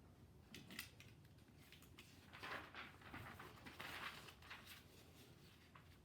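Mostly near silence, with a few faint light clicks near the start and two short, faint scratching strokes of writing on paper, about two and a half and four seconds in.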